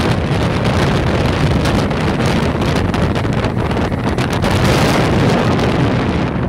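A Golfstream (Parsun) T8 two-stroke 8 hp outboard motor running under way at speed, its low drone mixed with the rush of water from the wake. Heavy wind buffeting on the microphone is as loud as the motor.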